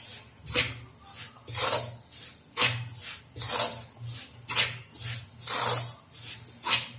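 A metal spoon scraping and stirring rice flour, dampened with hot water, around a metal pan. It comes as a run of short rasping strokes, about one to two a second.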